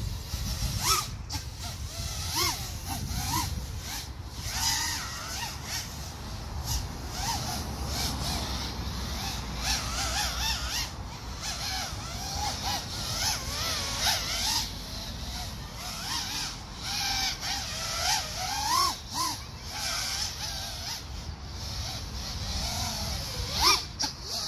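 FPV racing drone's motors whining in the air, the pitch swooping up and down again and again as the throttle changes, over a low rumble of wind on the microphone.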